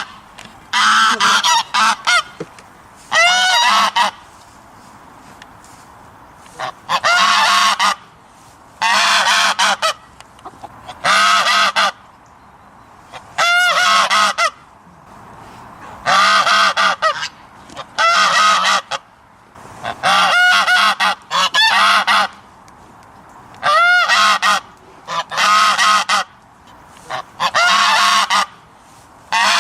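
Goose honking in loud bursts of harsh calls, each burst about a second long, repeating roughly every two seconds with one longer pause after the first few.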